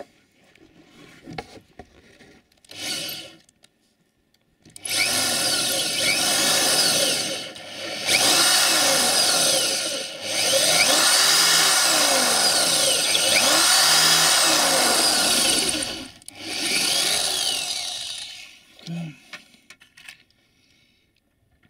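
Electric drill boring into the steel end of a UAZ Patriot wiper pivot shaft. It runs in several spells with short pauses and its pitch rising and falling, deepening a pilot hole that will be tapped for a 6 mm thread after the original threaded end rotted off.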